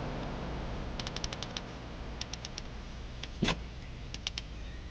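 Several quick runs of sharp light clicks over a steady low background hiss, with one louder knock about three and a half seconds in.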